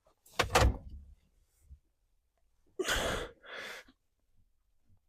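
A man's heavy sighs or breaths of exertion and frustration, in two puffs near the middle, after a short knock about half a second in.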